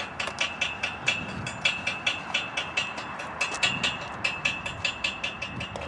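Rapid, slightly uneven ratchet clicking, about four to five clicks a second, each with a sharp ringing tick. It fits a line reel as the retrieval line tied to the RC speedboat is wound in.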